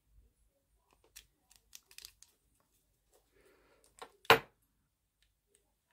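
A gel polish bottle and its cap being handled, with faint light clicks and rustling and then one sharp loud click about four seconds in.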